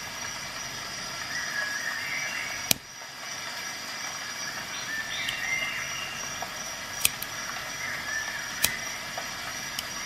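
Several sharp clicks over a steady background hiss, the loudest almost three seconds in and others spaced through the second half: a Roxon M2 mini multitool's pliers and fold-out tools snapping open and shut as it is handled.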